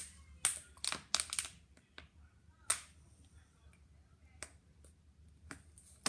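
Scattered sharp clicks and rustles of objects being handled close to the microphone. There are several in quick succession in the first second and a half, then single ones every second or so.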